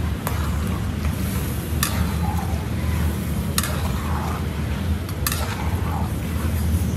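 A long-handled flat metal ladle stirring beef pieces through a huge pot of boiling broth, knocking sharply against the pot four times, about every second and a half, over a steady low rumble and hiss.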